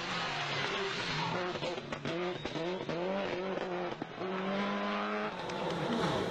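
Rally car engine revving hard through a corner, its pitch climbing and dropping several times as the driver shifts gear and lifts, with a few sharp cracks in the middle. It holds a steady note briefly before the sound changes abruptly near the end.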